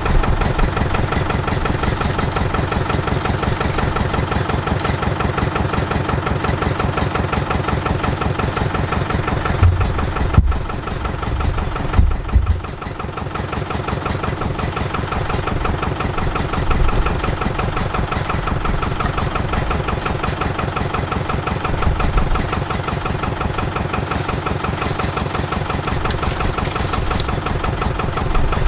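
Engine idling steadily with an even, rapid pulse, with a few heavy low thumps and a sharp click about ten to thirteen seconds in.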